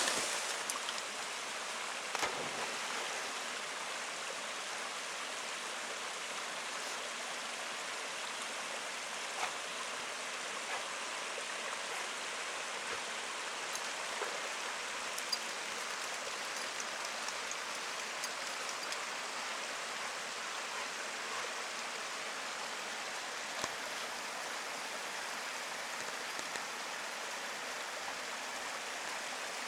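Mountain stream rushing steadily over rocks, with a few brief sharp sounds standing out from the flow.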